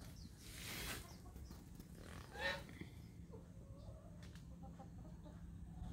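Chickens clucking faintly, with one louder hen call about two and a half seconds in and a few softer ones after it. A short rush of noise comes near the start.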